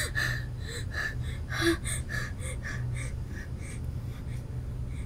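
A woman's short, gasping sobbing breaths, about three a second, getting weaker toward the end, over a low steady hum.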